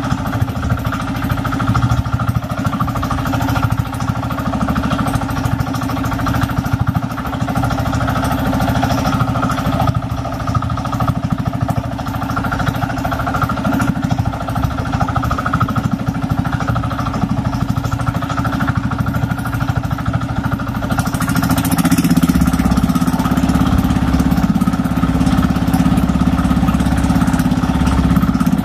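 Outrigger fishing boat's engine running steadily while the boat is underway. About three-quarters of the way through it grows louder, with more hiss on top.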